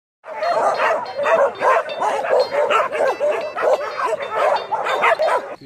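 Many dogs barking and yipping at once, a dense overlapping chorus of barks.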